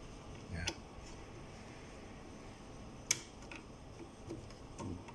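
A few small clicks at the chuck of an inLab MC XL milling unit's motor as the bur-change key is turned, one sharp click about three seconds in standing out, over a faint steady hum.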